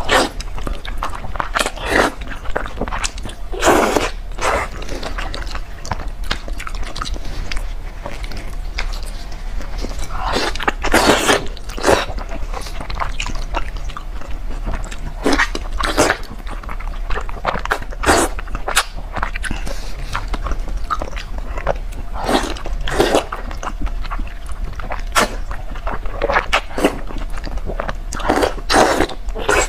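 Close-miked wet chewing and biting of braised pork cockscomb oil (pig mesentery fat), with irregular sticky clicks and several longer slurps as strips of the fatty meat are sucked into the mouth.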